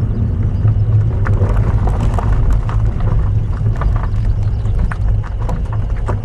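A car driving on a rough unpaved forest road: a steady low rumble from the engine and tyres, with scattered small clicks and knocks, like stones and gravel under the tyres.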